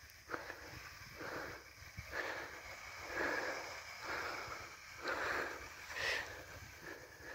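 Person breathing heavily close to the microphone, soft hissing breaths about once a second.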